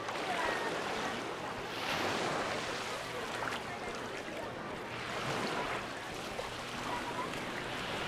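Small Mediterranean waves washing up the beach at the water's edge, swelling and ebbing every couple of seconds, with beachgoers' voices chattering in the background.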